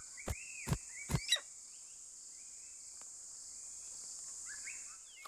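Night-time forest sound effect: insects such as crickets chirring steadily and high-pitched. Four or five sharp taps come in the first second and a half, with a few faint short chirps later on.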